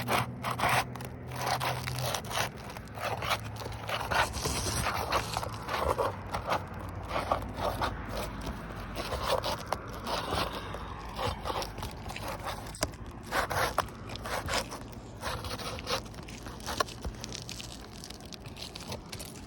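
A thin flat pry tool scraping and prying under asphalt roof shingles to work the roofing nails loose, with irregular scrapes, cracks and clicks as the shingle is broken free.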